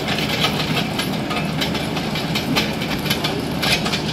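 Compact track loader's diesel engine running steadily under load while its trencher attachment cuts through gravel, with a dense, continuous clatter of chain and stones.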